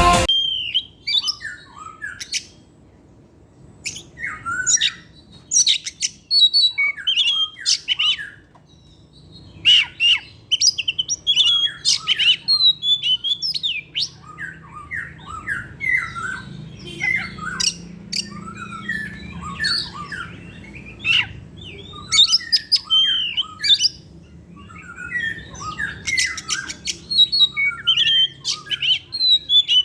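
Oriental magpie-robin singing: a long run of quick, varied phrases of whistles, chirps and harsher squawky notes, coming in bursts with short pauses between them.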